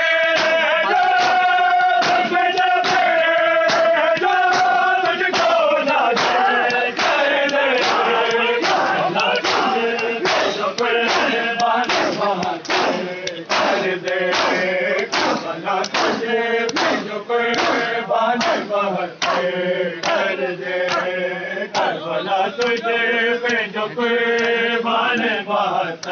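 Men's voices chanting a Muharram nauha (noha) together in long, held, sliding notes, over a steady rhythm of sharp chest-beating slaps (matam) that keep time.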